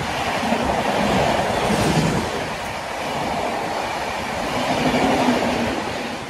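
A high-speed Indian Railways express of LHB passenger coaches running through a station at speed, its wheels rumbling and clattering on the rails. The rush swells twice as the coaches pass and eases near the end.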